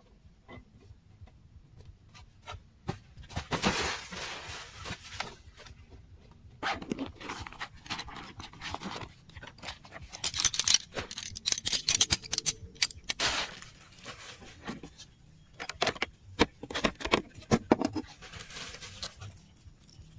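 Rustling, scraping and clinking of things being handled, in three bouts with quieter gaps between.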